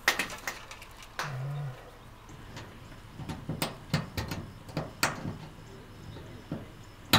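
Scattered light clicks and knocks of hands and tools working against metal siding, with a brief low hum about a second in.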